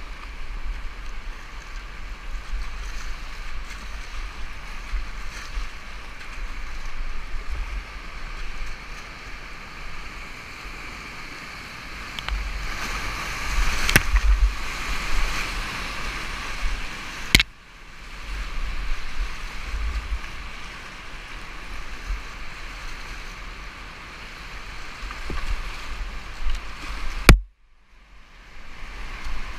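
Rushing whitewater of a river rapid at high flood flow, heard close up from a kayak, with a low rumble underneath. A few sharp knocks break in along the way, the loudest near the end, and the sound drops out for about a second right after it.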